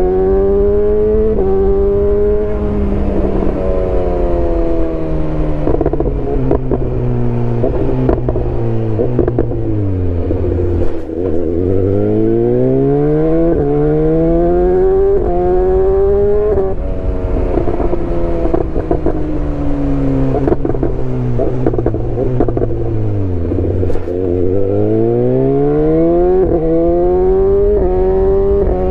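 2018 BMW S1000R's inline-four engine under way, loud. The revs sink slowly, then climb in several steps, each climb breaking off and starting again like upshifts through the gears, sink again and climb once more near the end.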